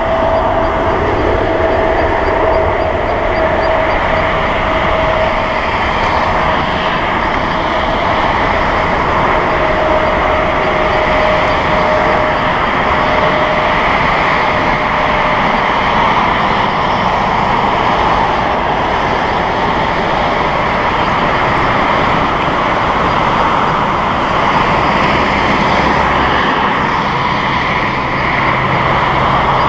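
Four GEnx-2B turbofans of a Boeing 747-8F freighter running at take-off thrust on the take-off roll: a loud, steady jet roar with a whine that fades about halfway through.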